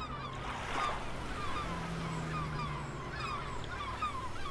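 A flock of birds calling, with many short, downward-sliding calls overlapping without a break, over a low steady hum.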